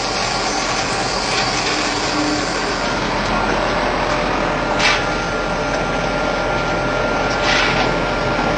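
Colloid mill running steadily: an even motor noise with a faint steady whine. Two short swishes break through, about five seconds in and again near the end.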